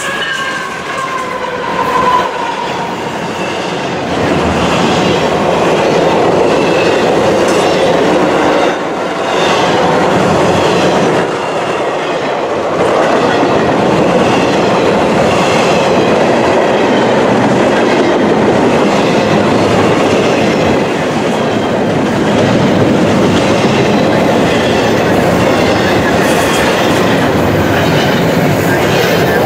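Double-stack intermodal freight train passing at speed: steady rolling rumble of container cars with clickety-clack of wheels over rail joints. In the first couple of seconds a falling tone sounds as the GE diesel locomotives go by.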